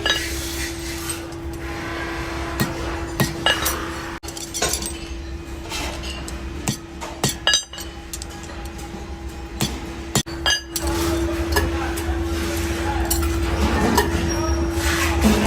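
Repeated sharp metallic clinks and knocks, irregular, over a steady machine hum that grows louder about two-thirds of the way through.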